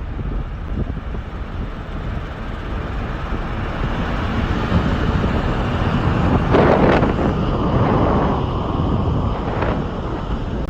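Wind buffeting the microphone over the low rumble of a moving car, with a louder gust about six and a half seconds in.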